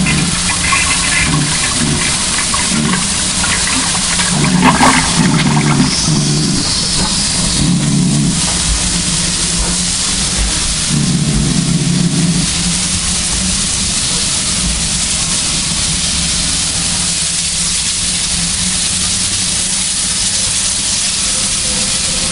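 Steam hissing steadily from GWR 5224, a 2-8-0 tank engine, with a string of odd low blasts of uneven length during roughly the first twelve seconds, after which only the steady hiss remains.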